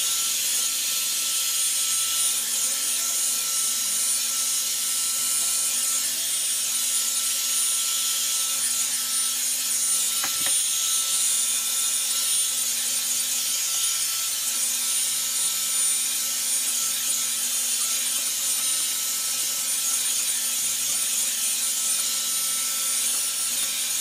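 Revlon One-Step Hair Dryer and Volumizer, a hot-air round brush, running on its heat drying setting while it is drawn through the hair: a steady rush of air with a thin, high, steady whine.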